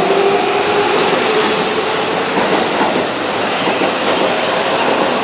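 Keihan 9000-series electric train (VVVF inverter car) running along the platform, with a motor whine that rises in pitch over the first couple of seconds, under steady wheel and rail noise as the cars go by.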